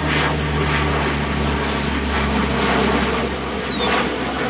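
Four-engine turboprop military transport plane, a C-130 Hercules by its outline, droning steadily as it flies overhead, with steady low tones under its engine noise. A short high falling whistle sounds about three and a half seconds in.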